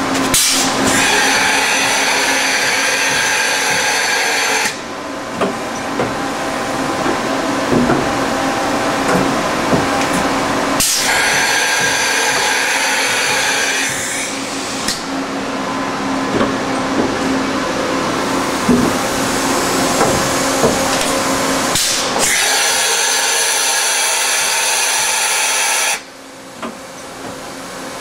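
1984 Niigata HN50A CNC horizontal machining center running under power. A steady machine hum carries on throughout, with scattered light clicks. Three louder stretches of hiss and whine of three to four seconds each come about one second in, about eleven seconds in and about twenty-two seconds in.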